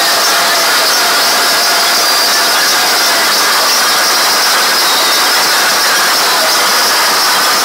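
Very loud DJ sound system of stacked horn loudspeakers, so close that the phone's microphone is overloaded: the music turns into a steady, distorted hiss-like noise with almost no bass.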